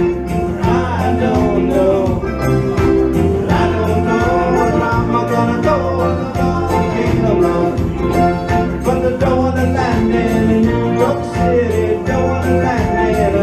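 Band music with a steady beat and regular bright percussion, with no clear lyrics.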